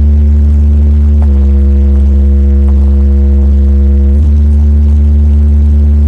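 A DJ sound system's speaker stack of subwoofer bass bins under tall cabinets plays a very loud, sustained deep bass note during a sound check. The note shifts in pitch a little over a second in and shifts back about four seconds in.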